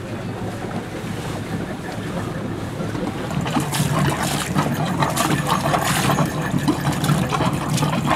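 Steady wind and water noise around a boat, with a low drone and scattered clicks growing louder about three seconds in.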